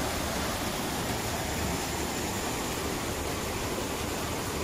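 Muddy flash-flood water rushing in a wide torrent: a steady, unbroken rush of water.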